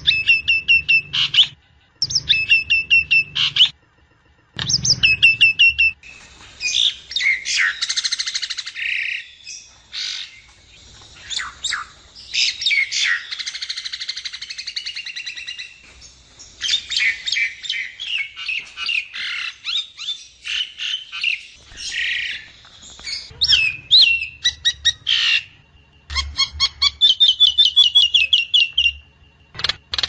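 Javan myna singing: fast runs of repeated chipping notes, with a long middle stretch of dense, varied, scratchy chatter.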